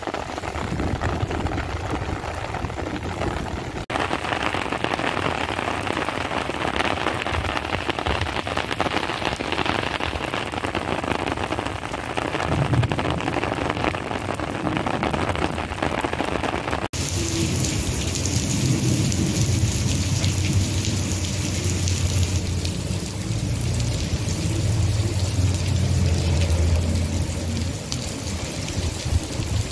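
Heavy monsoon rain pouring onto a wet paved street and standing water, a steady hiss of drops. About 17 s in the sound changes abruptly to a heavier downpour with low rolling rumbles of thunder underneath.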